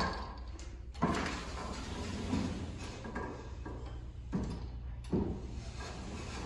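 Automatic glass entrance doors opening under power: a sharp clunk about a second in, then two more knocks a little after four and five seconds, over a steady low hum.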